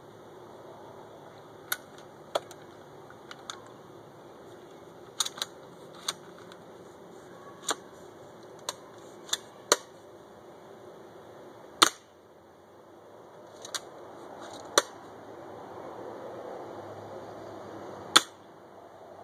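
UKArms M180C2 spring pump-action airsoft shotgun being fired repeatedly at a target: about fifteen sharp snaps at uneven spacing, some in quick pairs.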